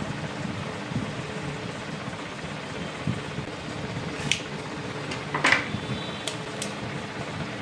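Kitchen knife cutting around an avocado and being set down on a wooden cutting board: a few sharp clicks and knocks in the second half, the loudest about five and a half seconds in, over a steady fan-like hum.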